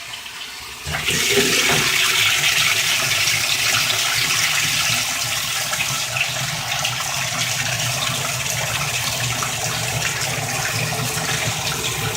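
A 1993 Whirlpool top-loading washing machine filling its wash basket: water pouring in steadily at the start of a cycle, growing much louder about a second in.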